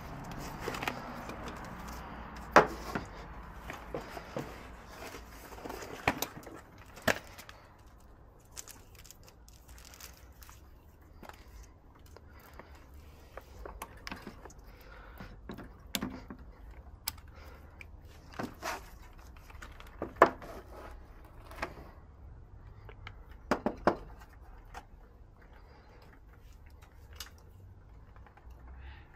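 Scattered light clicks and knocks of hands handling tools and multimeter probe leads at an air-conditioner outdoor unit's wiring terminals, with two sharper clicks, one early on and one about two-thirds of the way through.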